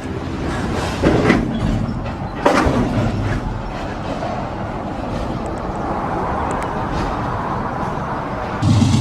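Freight train rolling past, its rail cars rumbling and clattering, with a few sharp clanks between about one and two and a half seconds in.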